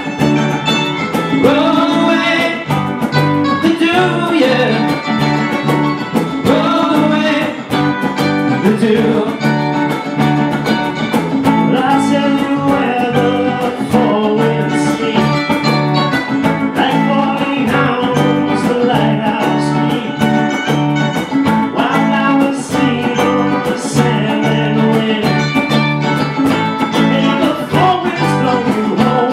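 A small band playing live: electric guitars through amplifiers over a cajon beat, with a voice singing along.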